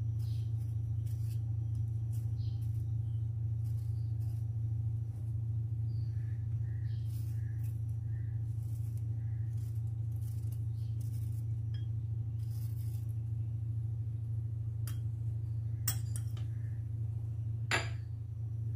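Steady low hum throughout, with faint, scattered scrapes and small clicks of a kitchen knife peeling a peach over a ceramic plate. Two sharper clinks of knife or fruit against the plate near the end.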